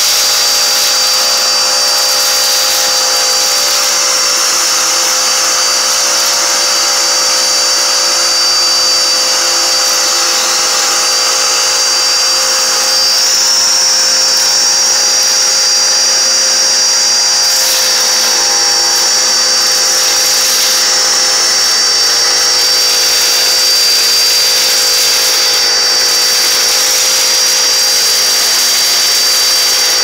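Dirt Devil handheld vacuum running steadily, its brush nozzle sucking up sand and coffee beans; a steady high-pitched motor whine over the hiss of the suction.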